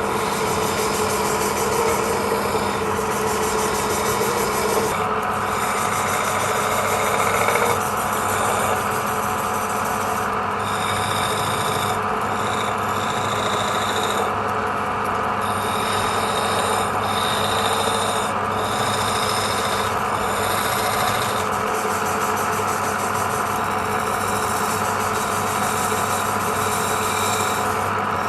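Wood lathe running at a steady hum, with the scraping rasp of a turning tool cutting the spinning wood coming and going every second or two.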